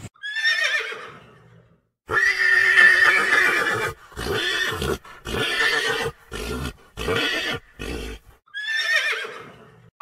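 Zebra calling. It gives a falling whinny-like cry, then a long loud call, then about six short barking calls in a row, and another falling cry near the end.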